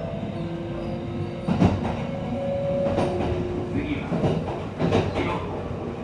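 Running sound inside car 23405 of a Kintetsu 23000 series Ise-Shima Liner: the Mitsubishi GTO-VVVF inverter and traction motors sing short steady tones that change pitch, over a steady rumble. Wheels clack over rail joints about three times.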